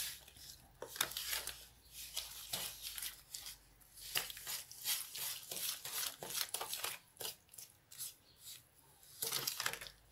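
A spoon stirring a wet mix of margarine, eggs, sugar and condensed milk in a plastic tub: irregular scrapes, knocks against the sides and wet squelches, several a second, with a louder run of scraping near the end.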